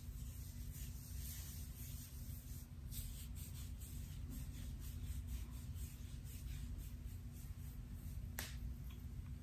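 Long acrylic fingernails scratching through short hair on a man's scalp: a run of quick, crisp scratches, with one sharp click near the end.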